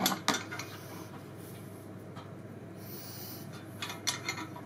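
A few light metal clicks and taps as a thin steel rod is worked through the pin hole of a cast aluminium sword guard seated on the blade, with a short hissy scrape about three seconds in.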